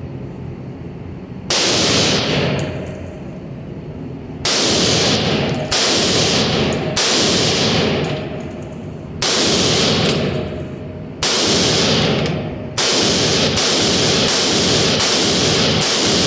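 Gunshots, each a sharp crack with a long ringing tail. They come one every second or two at first, then faster, about two a second, near the end.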